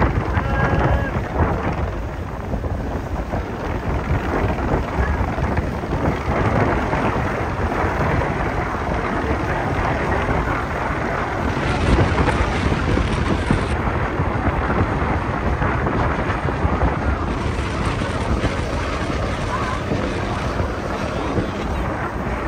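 Wind buffeting the microphone: a loud, steady rumble and hiss that never lets up, with brighter, hissier gusts about halfway through and again later, mixed with the wash of choppy water.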